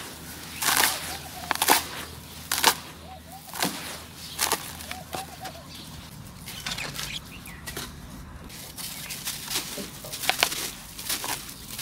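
Hands crumbling and dropping handfuls of dry dirt and sand-cement crumbs: gritty crunching and pouring rustles, about one handful a second, softer through the middle and picking up again near the end.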